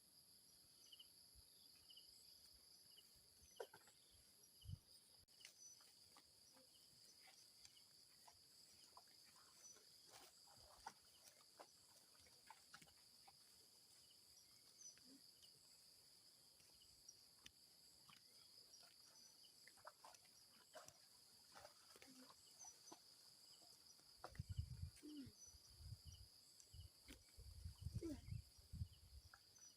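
Near silence with faint, steady high insect chirring, scattered small clicks, and a few low thumps and rustles in the last five seconds.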